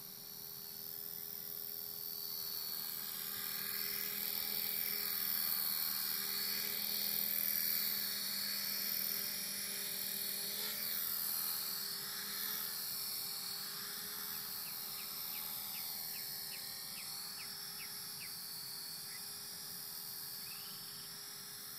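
Esky CP X electric radio-controlled helicopter in flight: the whine of its motor and rotor blades, wavering in pitch as it manoeuvres. It grows louder as the helicopter comes close, then slowly fades as it flies away.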